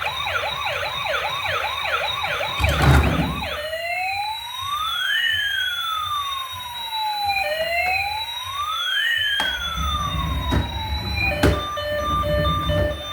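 Electronic siren of a toy emergency vehicle changing modes. It starts with a fast yelping sweep for about three seconds, then a slow wail in which a rising and a falling tone cross each other, then a pulsing beep near the end. A few sharp clicks fall where the sound changes mode.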